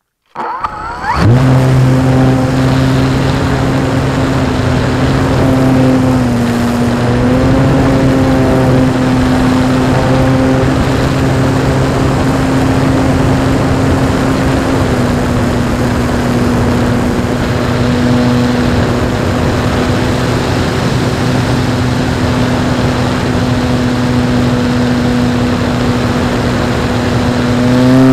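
Electric motor and propeller of an Art-Tech radio-controlled Pitts Special model biplane, heard from a camera on board. The motor spins up quickly in the first second for takeoff, then runs with a steady loud drone and small shifts in pitch as the plane flies, over a hiss of rushing air.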